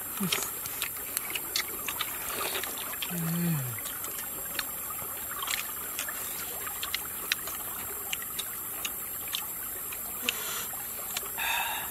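Shallow creek water trickling steadily, with frequent light clicks of metal spoons against an eggshell and a ceramic bowl as food is scooped up. A short hum from one of the eaters about three seconds in.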